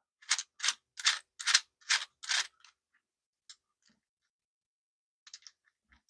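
Fully 3D-printed PLA Rubik's cube being twisted by hand: six sharp plastic clicks, about two a second, as its loose layers snap round, then a few faint ticks near the end.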